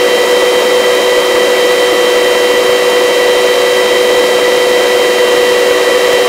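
Helicopter in a steady hover, its turbine and rotor noise a constant whine over an even hiss.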